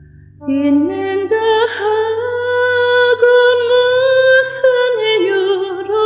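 A woman singing a slow Korean song over a soft backing track. Her voice comes in about half a second in and holds long notes with vibrato.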